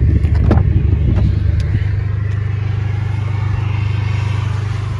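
Abarth 595's 1.4-litre turbo four-cylinder idling steadily through a straight-through exhaust, with a few short clicks and knocks in the first two seconds.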